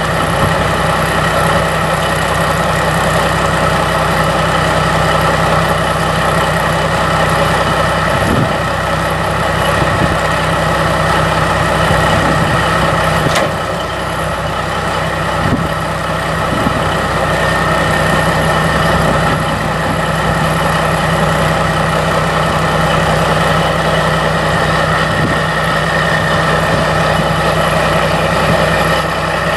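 Caterpillar 3406 14.6-litre inline-six turbo diesel of a 1990 Kenworth T600 truck idling steadily.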